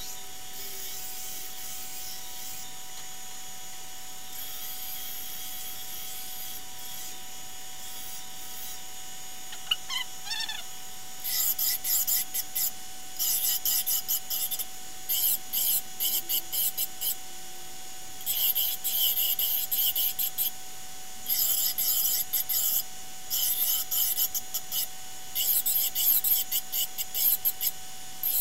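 Belt grinder running with a steady whine. From about a third of the way in, the edge of a stainless steel buckler is pressed to the belt in many hissing grinding passes of one to two seconds each, rounding off the edges.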